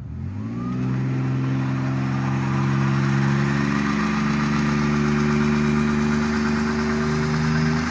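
Ford Ranger 3.0 pickup doing a burnout: the engine is held at steady high revs while the rear tyres spin, with a steady hiss from the spinning tyres over the engine note.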